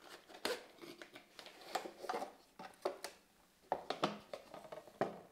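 Paper leaflets and a cardboard box being handled: a string of short rustles, flaps and taps as the paper inserts are pulled out and laid down.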